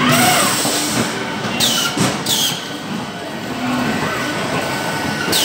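CPS CL86 case packing machine running: a steady mechanical clatter from its conveyors and drives, with a short rising-and-falling whine at the start and short hissing bursts twice in the middle and again near the end.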